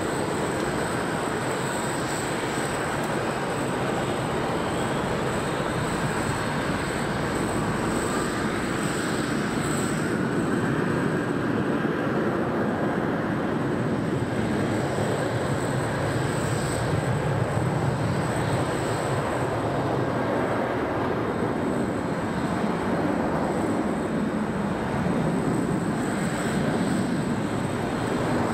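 Airport apron noise: a continuous rushing rumble with a thin, steady high whine over it. The low rumble swells briefly a little past the middle.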